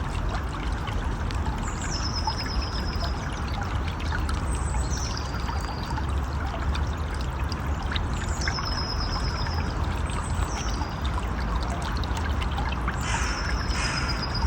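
Stream water running steadily over rocks. About every two to three seconds a short, high call sounds over it: a quick drop in pitch, then a brief held note.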